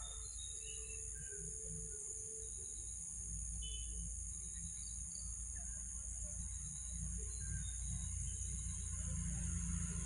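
Insects trilling steadily at a high pitch, with a few short high chirps scattered through it and a low rumble that grows louder near the end.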